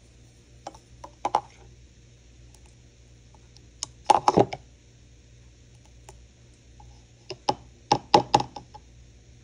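Metal spoon clicking and knocking against the Ninja Fit blender cup as it stirs and scoops the blended juice, in quick clusters of taps about a second in, around four seconds in, and again around eight seconds in.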